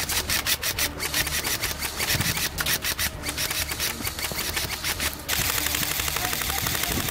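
Airsoft electric rifles firing full-auto in bursts: a rapid mechanical clatter of shots. About five seconds in it becomes a longer, denser unbroken stream of fire.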